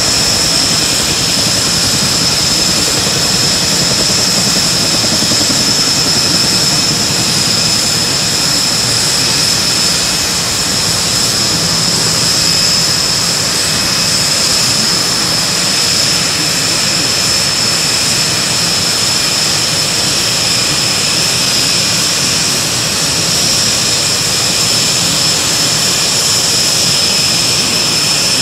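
Aircraft turbine engine running steadily: a constant high-pitched whine over an even rushing noise, neither rising nor falling.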